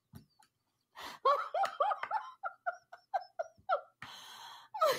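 Laughter: after about a second of quiet, a rapid run of 'ha-ha-ha' bursts, about five a second, then a breathy trailing-off near the end.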